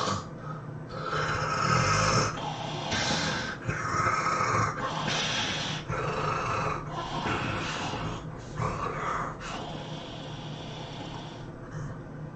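A person snoring heavily: a run of rough, raspy breaths about one a second, easing off over the last few seconds.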